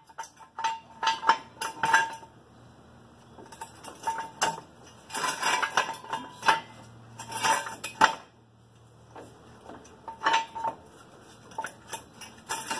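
Metal tools and steel parts clinking and clanking in short bursts of sharp, ringing knocks, with quieter gaps between the bursts.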